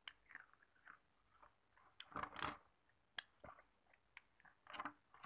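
Hard ice cubes being bitten and crunched, in a few separate bursts of crunching, the loudest about two seconds in and another near the end, with a sharp click just after three seconds as the plastic spoon knocks the ice in the dish.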